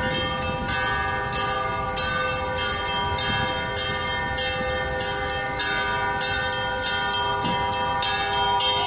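Orthodox church bells pealing: several bells struck in a quick, continuing pattern about twice a second, over a steady ringing of overlapping tones.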